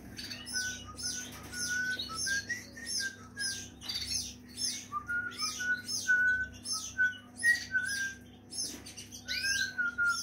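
Many caged canaries chirping and twittering together in a dense, continuous chorus of quick high chirps mixed with short clear whistled notes, over a faint steady low hum.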